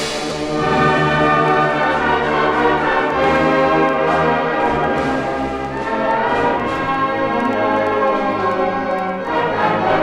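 High school concert band playing the opening bars of a piece, brass to the fore with trombones, horns and trumpets, on a 1965 vinyl LP recording.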